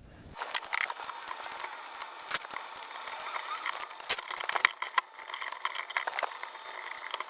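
Rapid small clicks, knocks and rattles of a Nerf turret's plastic parts and screws being handled as it is taken apart by hand.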